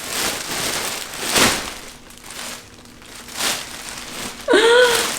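Gift packaging rustling and crinkling as it is handled and pulled open, with sharper crackles about one and a half and three and a half seconds in. A short vocal sound comes near the end.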